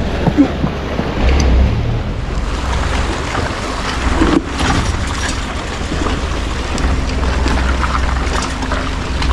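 Seaside wind rumbling steadily on the microphone over the hiss and wash of the sea, with a few small knocks.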